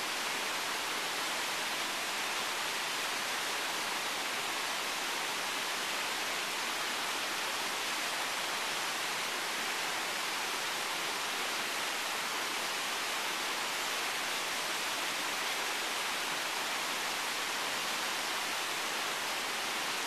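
Steady, even hiss of outdoor background noise that holds at one level throughout, with no distinct events standing out.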